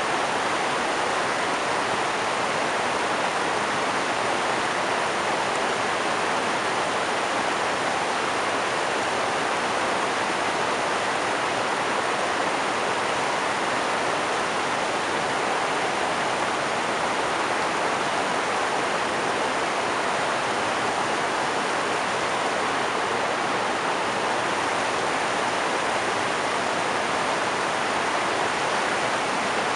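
River rapids rushing over and between rocks: a steady, even rush of white water with no change.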